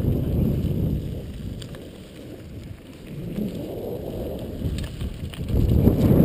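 Wind buffeting the microphone of a camera riding a mountain bike fast down a dirt trail, over the rumble and light rattle of tyres on loose ground. The noise eases off in the middle and rises again near the end as speed picks up.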